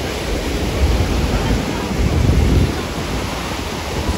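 Ocean surf breaking and washing in the shallows, with wind rumbling on the microphone and voices of people in the water.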